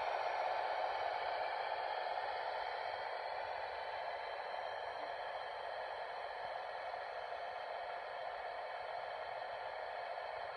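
Steady rushing hiss of water filling a tender, played from a Broadway Limited (BLI) model water tower's sound module through its small speaker, slowly fading.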